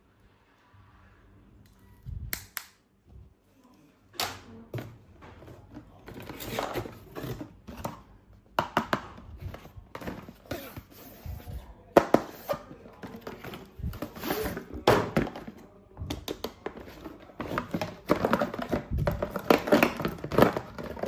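Plastic toys and packaging being handled: a run of clicks, knocks and rustling, with a few sharper knocks every couple of seconds and busier handling near the end.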